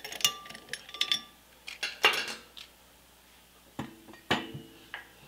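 Metal clinks and clanks as a steel gear puller is worked off an air compressor's flywheel pulley and the pulley is lifted free of its tapered shaft. Several quick clinks come in the first second, a louder clank about two seconds in, and two more near the end, some with a brief metallic ring.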